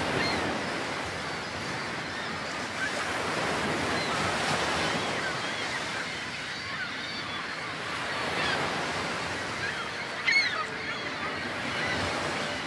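Small birds chirping over a steady rushing background noise, with one louder call about ten seconds in.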